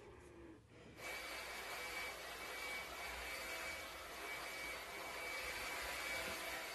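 Steady background hiss with a faint high, even whine, starting suddenly about a second in: the room noise of a home phone recording.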